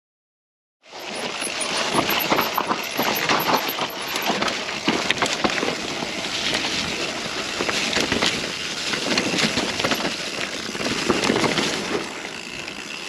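Mountain bike ridden over a rough woodland trail, starting abruptly about a second in: constant tyre noise with dense, irregular rattling and clicks from the bike.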